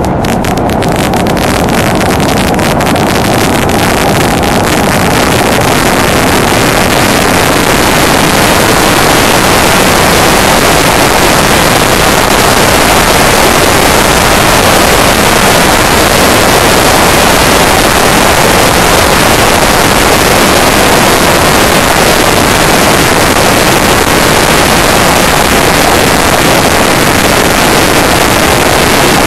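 Heavy wind rush on the microphone of a camera riding on a Honda Deauville NT650V motorcycle, with little else to be heard. It swells over the first few seconds as the bike gathers speed onto the motorway, then holds steady.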